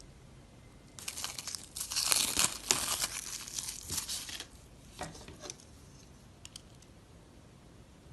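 Dry soap crunching and crackling densely for about three and a half seconds, then a few separate crunches and faint clicks.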